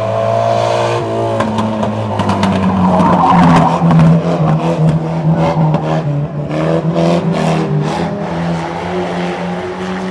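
Banger race cars' engines running loud and hard as they lap, with a flurry of clattering knocks a couple of seconds in and several short harsh bursts of noise in the middle.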